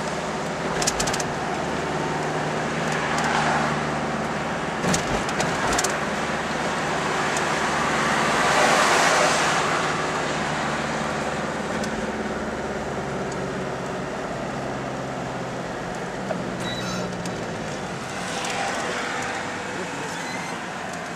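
Steady engine hum and tyre and road noise inside a moving car's cabin in city traffic, swelling as a vehicle passes close alongside about nine seconds in. A few light knocks come about one and five seconds in.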